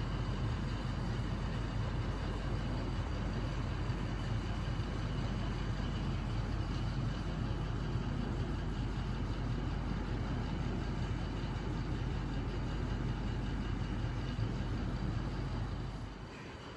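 Steady low background rumble with hiss, no distinct clicks; it drops in level about a second before the end.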